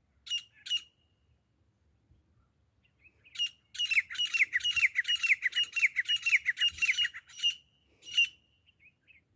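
Grey francolin calling: two short harsh notes, then after a pause a fast run of harsh, falling notes, about three or four a second for nearly four seconds, and one last note near the end.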